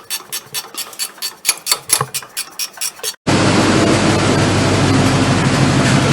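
A quick run of sharp clicks, about six a second, for roughly three seconds, then an abrupt cut to the truck's engine running steadily, its exhaust manifold gasket and broken flange bolt just repaired.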